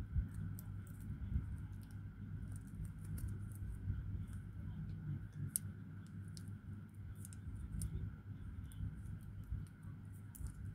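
Soft crinkles and irregular small clicks of folded coffee sachet strips being handled and folded between the fingers, over a steady low hum.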